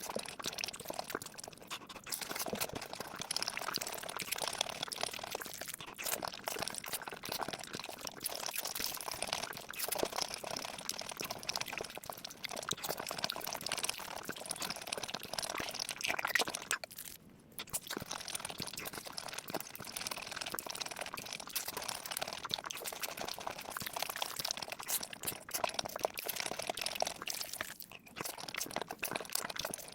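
Close-miked eating: wet chewing and crunching in a dense, continuous crackle of small clicks, which drops out briefly about 17 seconds in.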